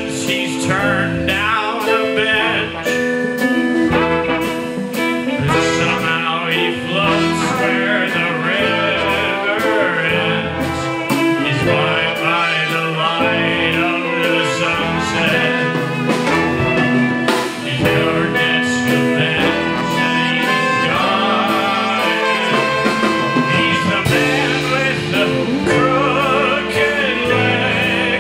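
Live band music: a man singing over a small band of trumpet, trombone, violin, guitar and drums playing a bluesy, jazz-tinged song with a steady beat.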